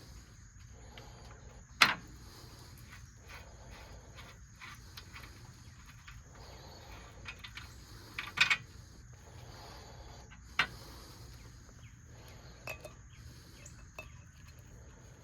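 A handful of sharp metal clinks and knocks as tools and parts are handled at a workbench, the loudest about two seconds in and just past the middle. A steady high-pitched insect drone runs underneath.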